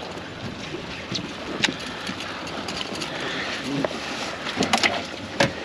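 Steady wind noise on the microphone over water around a wading angler, with a few sharp clicks about a third of the way in and near the end.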